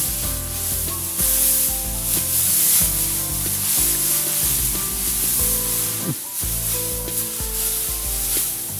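Dry harvested rice sheaves rustling continuously as they are trodden underfoot, threshing by foot that shakes the grains loose from the panicles. Music plays along with it.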